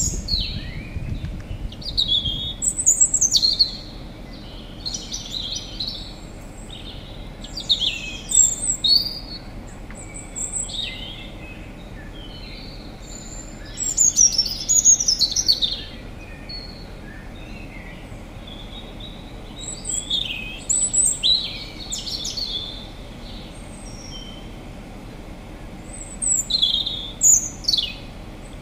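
Wild birds chirping and singing in short bursts of quick high notes every few seconds, over a faint steady outdoor background hiss.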